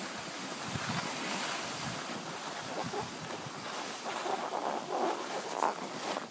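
Wind rushing over the microphone and skis hissing and scraping over groomed snow while skiing downhill, louder for a moment about five seconds in.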